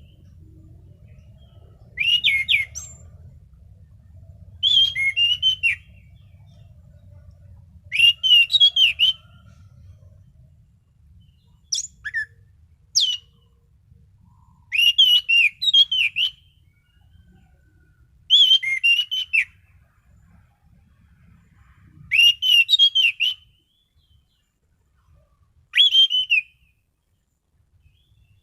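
Orange-banded thrush (anis cendana) singing: loud, rich whistled phrases of about a second each, delivered roughly every three seconds, with a pair of short sharp notes about twelve seconds in. A faint low hum sits under the first part.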